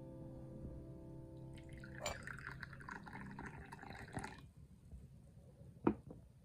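Tea pouring from a porcelain teapot into a porcelain cup for about two and a half seconds, splashing as it fills. Near the end a single sharp clink as the teapot is set down on the tray.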